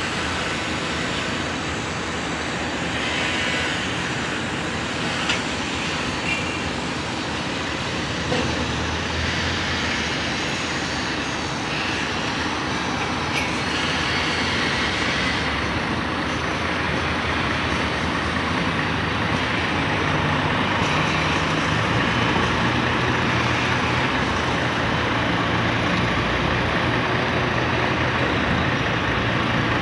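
Steady outdoor din of road traffic and construction-site machinery, growing a little louder in the second half, with a low engine hum coming in and a few faint knocks.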